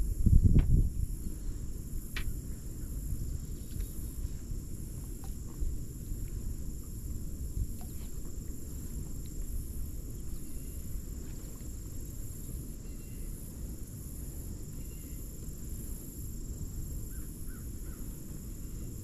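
Outdoor lakeside ambience: a steady low rumble, a steady high-pitched drone, and a few faint bird calls, with a dull thump about half a second in.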